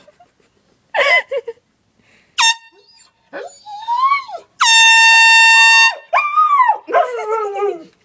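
An air horn gives a short blast about two and a half seconds in and a long steady blast of about a second near the middle. A dog howls back after each blast, its howls rising and falling in pitch, with a brief outburst from it about a second in.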